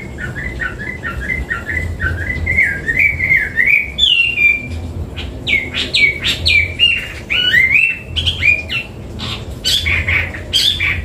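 Hwamei singing: a quick run of repeated whistled notes, then from about four seconds in a string of loud, varied slurred whistles, many dropping sharply in pitch.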